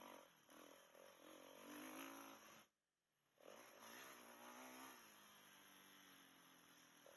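GoPro audio showing its recording fault: a loud high-pitched hiss over a muffled, pulsing low rumble with wavering pitch. The sound cuts out almost completely for about half a second near the middle, then comes back.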